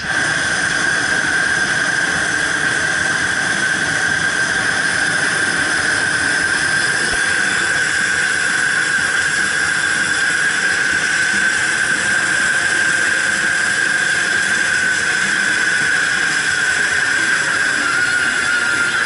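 Hot-air balloon propane burner firing in one long continuous burn: a loud steady roar with a strong high whistle, starting suddenly and dipping slightly in pitch near the end.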